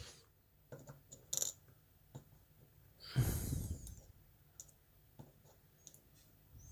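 Small scattered clicks and taps of small metal lock parts being handled, with one loud breath close to the microphone lasting just under a second about three seconds in.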